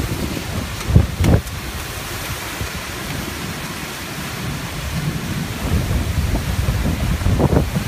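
Severe thunderstorm: heavy wind-driven rain with strong gusts buffeting the microphone. There are two loud jolts about a second in and more gusting near the end.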